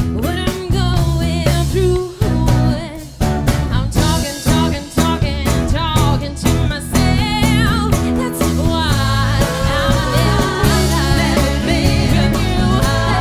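Live blues band playing: drums, bass, guitars and keyboard, with a woman singing lead.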